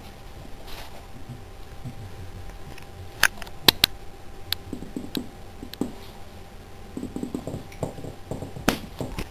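Boxer dog eating raw fish: irregular sharp clicks and crunches of chewing, coming faster in the last few seconds.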